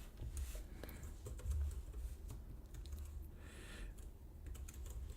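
Faint typing on a computer keyboard: scattered light keystrokes as track names are typed in.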